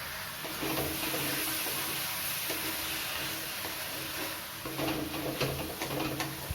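Chicken and spices frying in a pan with a steady hiss while being stirred, with a few short scraping strokes against the pan near the end.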